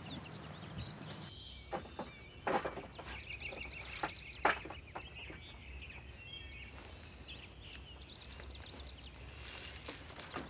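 Outdoor ambience with small birds chirping and a few footsteps in the first half, over a faint low hum.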